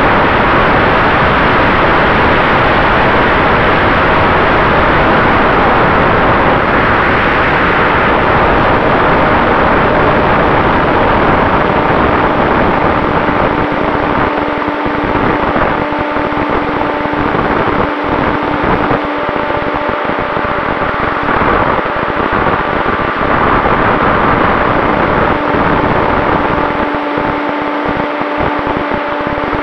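Loud rushing wind noise on the onboard camera of a HobbyZone SuperCub RC plane in flight, with the hum of its brushless electric motor and propeller underneath. From about halfway a steady motor tone comes through more clearly, and the low buffeting thins out.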